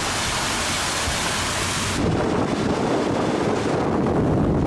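Hurricane wind and heavy rain, a loud steady rush of noise. About two seconds in it changes abruptly to a duller, lower rush.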